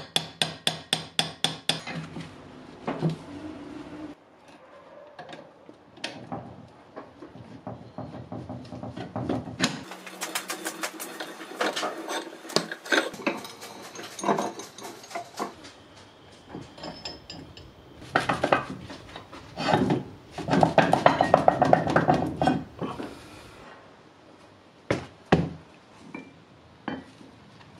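Steel hand tools scraping and clinking on a cast-iron bench vise as it is stripped down: a screwdriver digs old packed grease and dirt from around the spring, with metal parts knocked and set down. It opens with a fast run of clicks and has its densest clatter past the middle.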